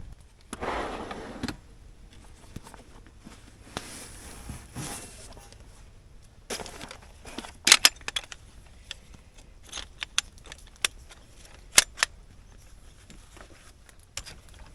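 Handling noises: a rustle early on, then scattered sharp clicks and knocks, with the loudest knocks about eight and twelve seconds in.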